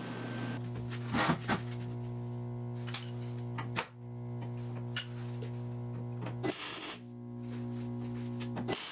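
Background music, with three short bursts of MIG tack welding on the steel rocker panel. The longest burst comes about two-thirds of the way through.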